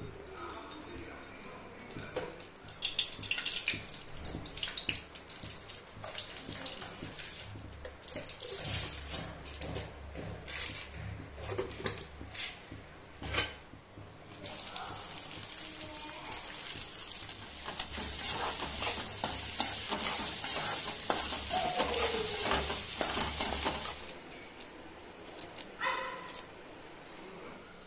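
Hot oil crackling and spitting in a kadai as mustard seeds and dal are tempered. About halfway through, a steadier, louder sizzle begins as chopped onions go into the oil, and it cuts off a few seconds before the end.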